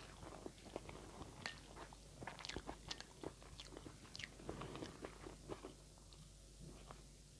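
Close-miked chewing of instant noodles: a run of short, irregular wet mouth clicks that thins out and goes quieter near the end.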